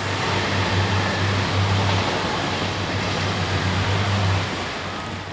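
A machine running steadily, a low motor hum under a rushing noise, that winds down about four and a half seconds in.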